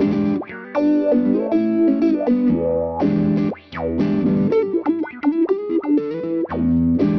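Electric guitar playing notes and chords through the Cratere effects plugin, with a distorted, effected tone. About halfway through, a quick swooping sweep in pitch falls and rises again between phrases.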